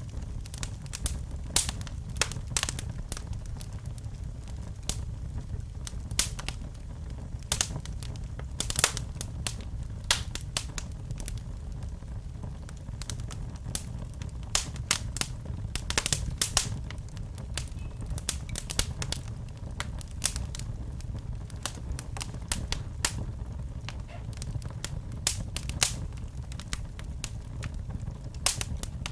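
Fire burning: irregular sharp crackles and pops over a steady low rumble of flames.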